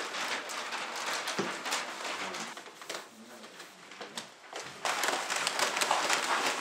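Paper rustling and crinkling as hands unroll, cut and crimp sheets of craft paper, with scissors snipping through paper. The rustle eases off in the middle and grows loud again near the end.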